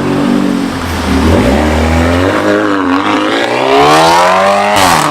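Volkswagen Golf R turbocharged 2.0-litre four-cylinder running through a newly fitted downpipe and Borla cat-back exhaust, accelerating hard. The engine pitch dips about a second in, climbs steadily for several seconds, then drops sharply at an upshift near the end.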